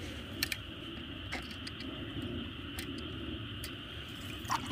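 Steady outdoor background noise: a low rumble under a steady high hiss, with five faint clicks spread through it.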